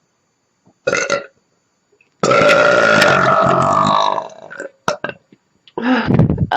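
A person burping: a short burp about a second in, then one long burp of about two seconds whose pitch sinks toward its end, and another shorter burp near the end.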